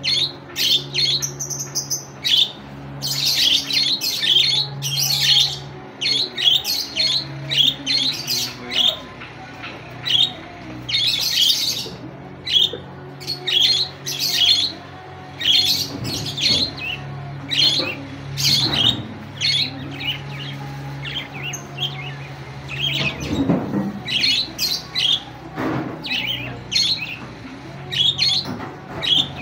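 Budgerigars chattering in rapid, high, scratchy chirps and squawks, calling to draw a rival bird into answering, with a faint steady low hum underneath.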